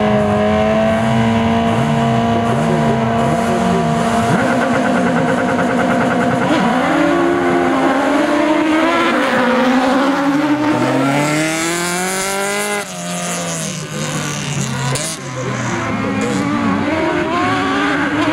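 Several autocross race cars' engines running hard on a dirt track: for the first four seconds they hold steady revs while one engine is blipped up and down, then the revs climb and drop again and again as the cars accelerate and shift gears.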